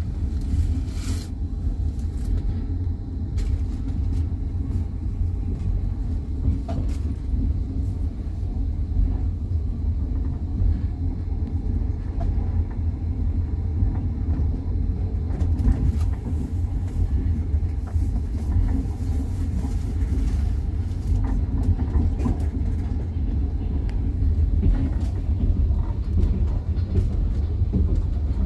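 Moving train heard from on board: a steady low rumble of the wheels running on the rails, with a few faint scattered clicks.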